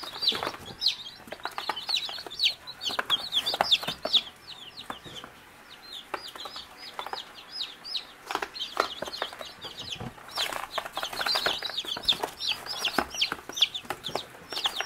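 A group of newly hatched chicks peeping constantly, many short high chirps each falling in pitch. The peeping thins out for a couple of seconds in the middle, then picks up again. A few light knocks are mixed in.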